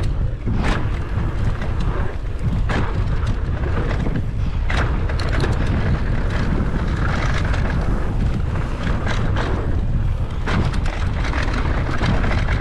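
Wind buffeting the microphone of a rider's camera while riding fast down a dirt mountain-bike trail, with tyre noise on dirt and scattered clatters as the bike goes over bumps.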